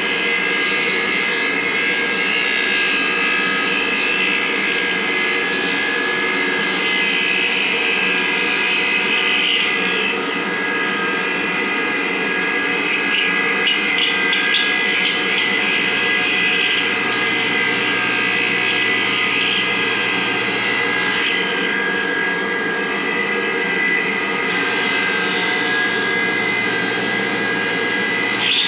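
CNC milling machine spindle running with a steady whine while an end mill cuts dry through the bore of a cast iron part, the harsh cutting noise swelling and fading. The end mill chatters because its corners are chipped.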